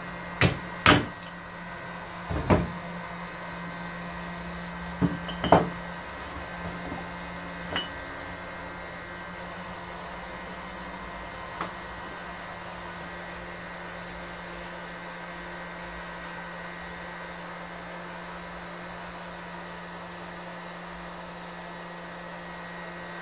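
Hammer blows on a long steel socket driving a press-fit bearing out of a motorcycle rear sprocket carrier hub: about six sharp metal knocks in the first eight seconds and a fainter one near the middle. A steady low hum runs underneath.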